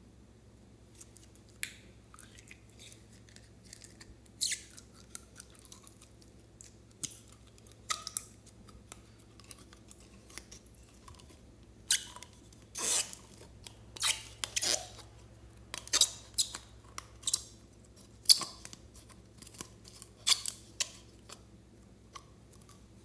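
Slime being squished and stretched by hand: irregular sticky pops and crackles, coming thicker and louder in the second half.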